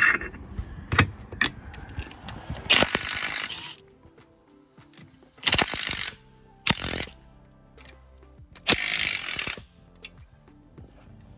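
Craftsman cordless ratchet spinning nuts off the mounting studs of an Alpha sterndrive in four short bursts, each under a second. Scattered clicks of metal tools come before the bursts.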